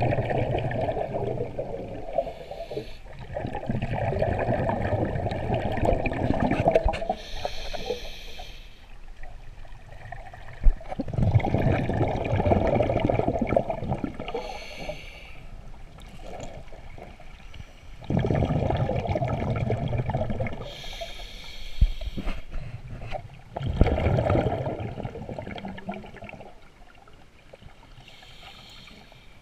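Scuba diver breathing through a regulator underwater. Long rumbling bubble exhalations alternate with short hissing inhalations, about four breaths in a slow, even rhythm.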